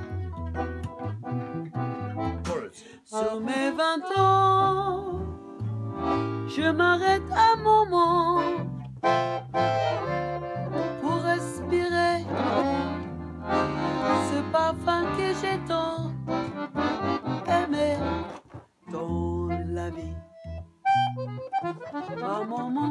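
Acoustic guitar strumming chords, joined a few seconds in by a chromatic button accordion playing a sustained, wavering melody over the guitar accompaniment in an instrumental break.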